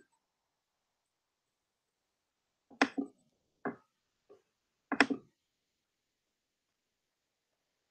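A few brief voice sounds: four short bursts between about three and five seconds in, with dead silence around them.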